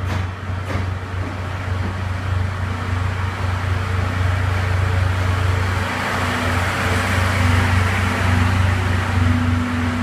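Locomotive-hauled train of 14 series passenger coaches rolling slowly past along the platform as it pulls into the station: a steady low hum under wheel-and-rail noise that grows louder in the second half, with a couple of clicks from the wheels over the rails in the first second.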